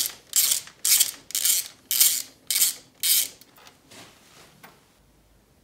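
Hand ratchet wrench clicking in quick back-strokes, six or seven of them at about two a second, stopping a little over three seconds in.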